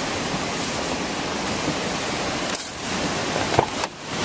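Steady rushing roar of floodwater pouring across a road, dipping briefly twice.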